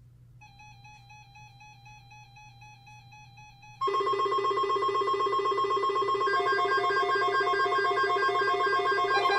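Electronic tones: a faint pulsing tone, then about four seconds in a loud ring that trills quickly like a telephone ringer. From about two seconds later, short repeated musical notes sound over it.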